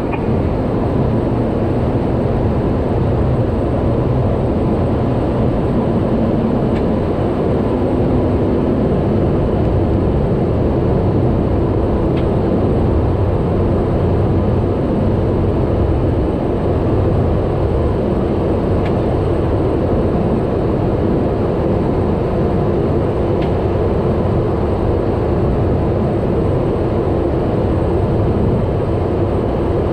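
Steady drone of a Cessna 208 Grand Caravan's PT6A turboprop engine and propeller, heard from inside the cockpit in flight.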